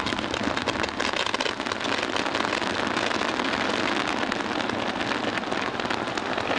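Waterfall-curtain and fountain fireworks burning together, giving a dense, continuous crackle of many small pops.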